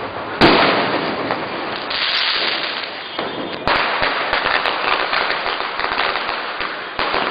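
Firecrackers going off: a dense, continuous crackling, with a sharp bang about half a second in, which is the loudest, and more bangs at about four seconds and near the end.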